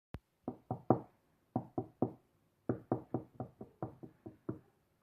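Knocking on a window: a group of three knocks, a pause, three more, then a quicker run of about eight knocks. A sharp click sounds just at the start.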